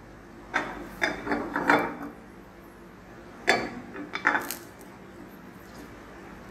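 Wooden spoon scraping and knocking against a stainless steel frying pan as it spreads olive oil, in two bursts of quick scrapes: one about half a second in and another about three and a half seconds in.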